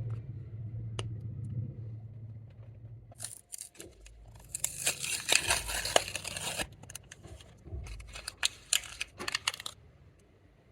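Clear slime being squished and pulled by hand, giving sticky crackling and popping clicks that come thick in the middle and thin out to single pops before stopping. A low hum fades out at the start.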